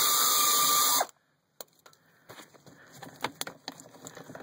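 Power drill running steadily with a whine as it spins out an 8 mm fastener, stopping suddenly about a second in. Then light clicks and knocks of the loosened part being handled.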